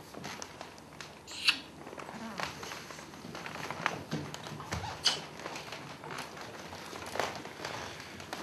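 Faint shuffling, rustling and small knocks of people moving about a stage, with two sharp clicks about one and a half and five seconds in.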